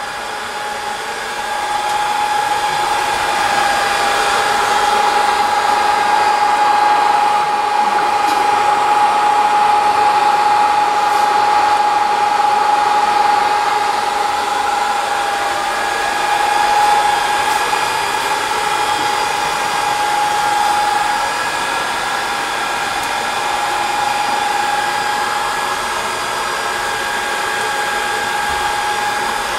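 ZC-C2 BGA rework station running with its top and bottom hot-air blowers on, a steady rushing blow with a constant whine, while its heaters bring a motherboard BGA chip up to reflow temperature.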